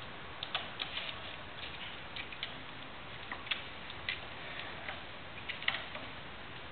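A kitten's claws and paws tapping and scratching at a sisal scratching post and a dangling belt. It makes scattered light ticks and scrapes at an irregular pace over faint background hiss.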